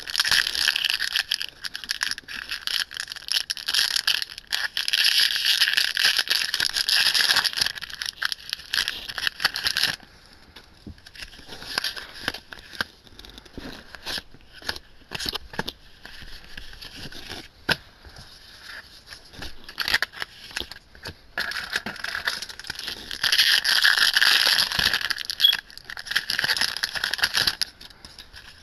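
Foil Yu-Gi-Oh! booster-pack wrappers crinkling and being torn open by hand, loudest for the first ten seconds and again a little after twenty seconds. In between, quieter clicks and slides of trading cards being flicked through.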